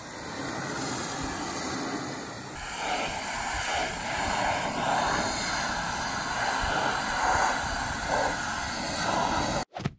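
Pressure washer spraying water hard against the underside and frame of a grain trailer: a steady hiss and spatter that grows louder about three seconds in and cuts off suddenly near the end.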